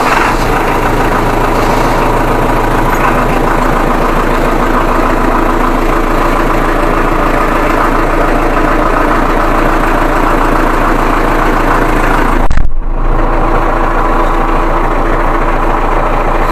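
Tümosan tractor's diesel engine idling steadily, heard from inside the cab, just after a cold start in snowy weather, at about 830 rpm. A short thump sounds about twelve and a half seconds in.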